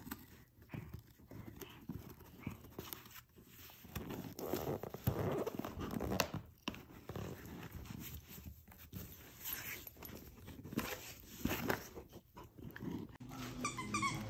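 Great Pyrenees puppy chewing and tearing at a cardboard box, making irregular crunching, scraping and tearing noises as its teeth work the cardboard.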